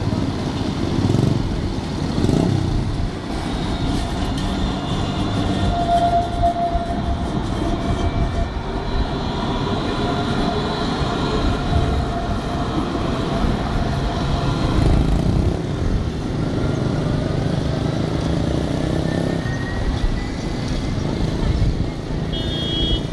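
A modern light-rail tram running past close by on its rails: wheels rumbling on the track, with thin high tones coming and going. Steady city traffic noise runs underneath, and a whine rises in pitch in the second half.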